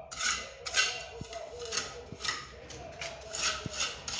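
Steel trowel scraping cement mortar onto a plastered wall in a series of short rasping strokes, about two a second.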